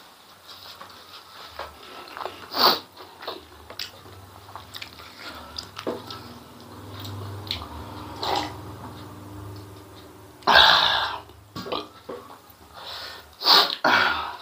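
Close-up eating sounds of a man eating spicy food: chewing and small mouth clicks, a drink from a metal mug about eight seconds in, and several short loud breath or throat sounds, the loudest and longest a little after ten seconds in.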